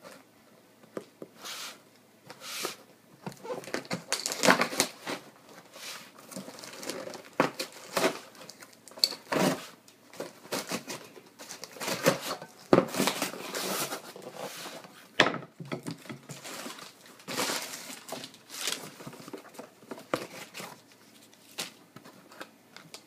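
Packaging being handled and torn open by hand: irregular crinkling and tearing in uneven bursts, with short pauses between.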